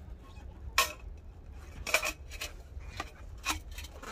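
Thin stainless steel chimney pipe sections clinking and scraping against each other as they are fitted together: a handful of short, sharp metal knocks over low rubbing.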